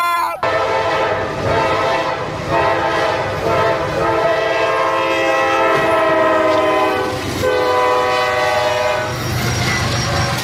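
Diesel locomotive air horn sounding long blasts, a chord of several notes, over the low rumble of the passing train; the horn breaks off briefly a few times and sounds a different chord past the middle.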